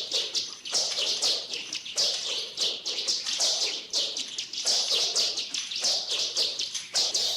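Nunchaku swishing sound effects in the style of 1970s kung fu films: a fast, unbroken run of airy, whistling whooshes, about two a second.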